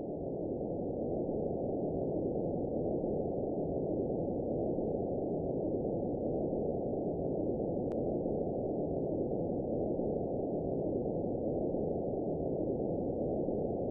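Steady, muffled low noise like dulled static, swelling up over the first second and then holding level. A single faint tick comes about eight seconds in.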